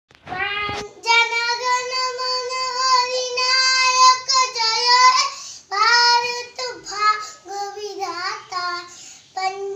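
A young boy singing unaccompanied in a high voice. He holds one long steady note, then breaks into shorter phrases that slide up and down in pitch.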